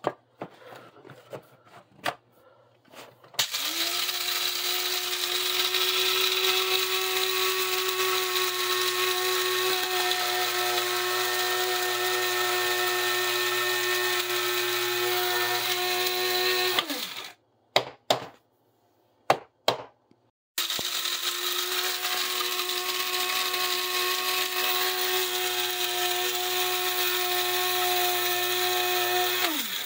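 Mueller electric blade coffee grinder grinding roasted coffee beans in two runs. After a few clicks the motor runs steadily for about thirteen seconds and winds down with a falling pitch. A few knocks come in the pause, then a second run of about nine seconds also winds down near the end.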